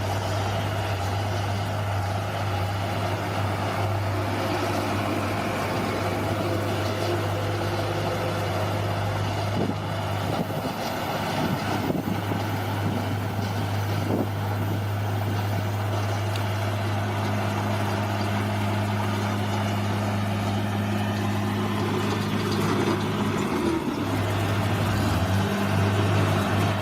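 Bulldozer's diesel engine running steadily, with a brief change in its note near the end.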